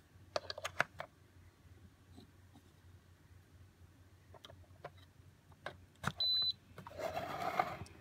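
Sharp plastic clicks as USB wall adapters and a USB tester are plugged into a power strip, then one short high electronic beep about six seconds in as the USB tester powers up, followed by about a second of handling rustle.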